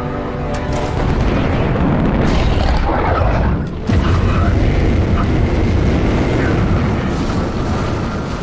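Fighter jet engine noise swelling loud as the throttle is pushed forward, with music underneath; a sudden jump in loudness about four seconds in.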